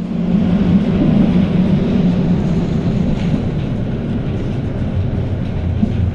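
Older high-floor tram heard from inside the passenger saloon while running along the track: a steady rumble of motors and wheels on rails.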